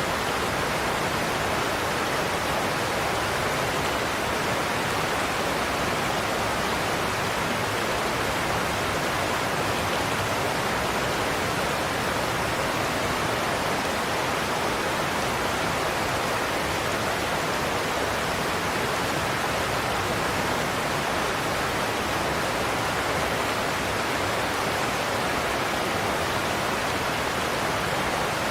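Godafoss waterfall, a large Icelandic cascade, pouring steadily: an even, unbroken rush of falling water with no change in level.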